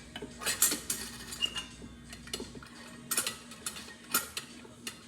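Metal parts of an electric percolator clinking and clicking together as the coffee basket is fitted onto the pump tube and the pieces are set in place: a string of short sharp knocks, some close together.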